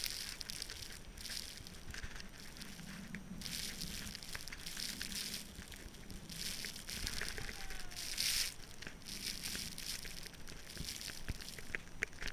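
Wind-blown snow hissing and crackling against a camera lying on the snow, swelling and fading in gusts every second or so, with a few faint clicks near the end.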